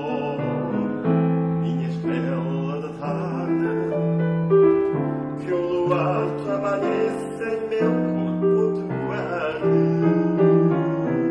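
Piano accompanying a man singing a slow fado song, his long held notes wavering with vibrato.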